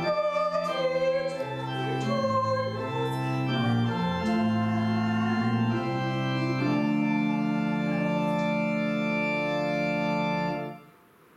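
Organ playing the closing phrase of a hymn, moving through a series of chords and ending on a long held final chord of about four seconds that stops abruptly near the end.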